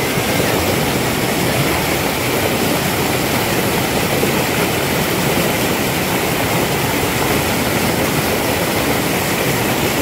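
Mountain stream water rushing over broad rock slabs in whitewater rapids, a loud, steady, even rush close to the microphone.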